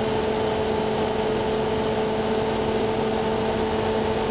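Idling vehicle engine giving a steady hum with a constant drone.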